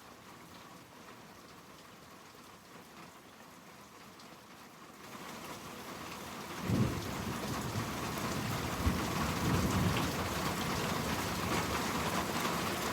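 Steady rain falling, faint at first and growing louder from about five seconds in. A low rumble of thunder starts about seven seconds in and rolls on for several seconds over the rain.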